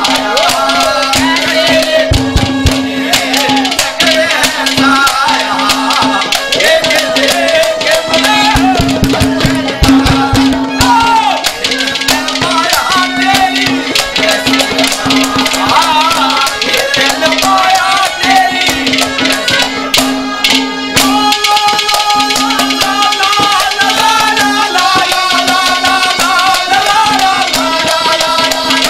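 Instrumental interlude of Haryanvi ragni folk music: a melody instrument plays a wavering tune over a low note that pulses in a steady rhythm, with fast hand-drum strokes throughout.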